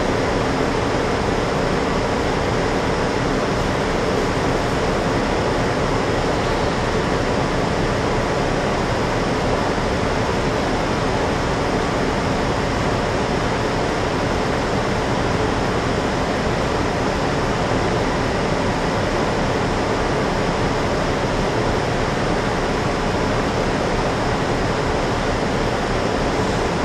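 Steady cabin noise inside a city transit bus standing still with its engine idling, an even hiss over a low hum with no change throughout.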